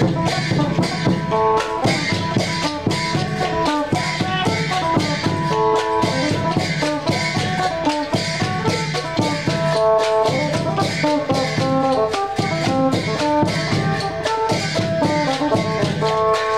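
Isan folk music played live: many hand-held wooden clappers (mak kap kaep) clicking in a quick, steady rhythm over a plucked phin lute melody and a barrel drum.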